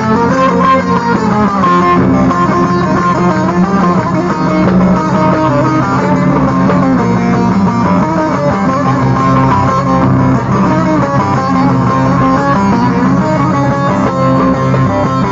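Instrumental break in a Turkish folk song: plucked string instruments play a moving melody over a steady low accompaniment, with no singing.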